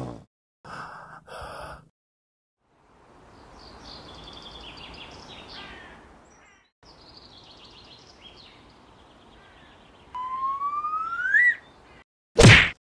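Park ambience of birds chirping over a soft outdoor hiss, then a single rising whistle lasting about a second and a half, and a short loud hit near the end.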